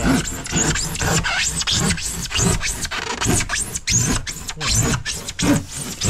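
Handsaw cutting through the edge of a foil-faced PIR insulation board, in quick, even back-and-forth strokes, about two or three a second.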